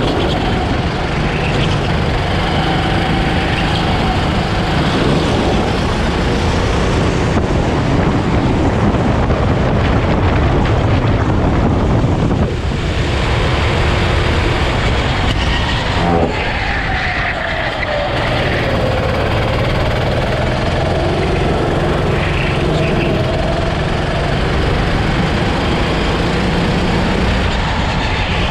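Rental go-kart engine running hard on the move, its note dropping away about twelve seconds in and then climbing again as the kart picks up speed, over a constant rush of wind and road noise.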